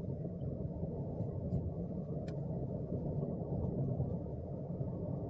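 Car driving steadily at road speed: an even, low rumble of engine and tyre noise, with a faint click about two seconds in.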